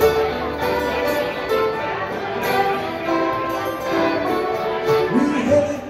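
Acoustic bluegrass band playing an instrumental passage: banjo, fiddle, guitar and dobro together.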